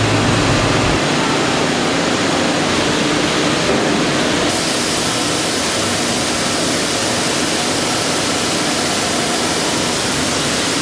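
Steady, loud rushing noise with no distinct events; its top end dulls slightly about four seconds in.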